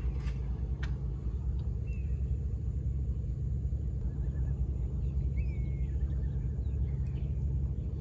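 A steady low rumble, with a few faint bird chirps over it.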